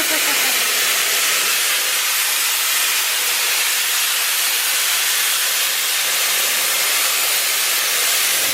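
Loud, steady hiss of a pressurised air or gas jet in a metal workshop, even and unbroken.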